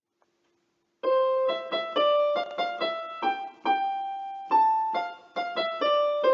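Music: a simple melody of single notes played on a keyboard, starting about a second in, each note struck and fading before the next, about a dozen in all.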